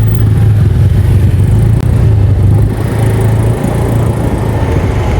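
Motor vehicle engine running close by: a loud, steady low drone with road noise.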